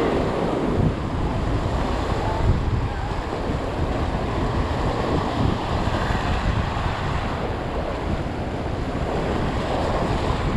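Ocean waves surging and breaking against a jetty wall and rocks, with strong wind buffeting the microphone as a steady rumble.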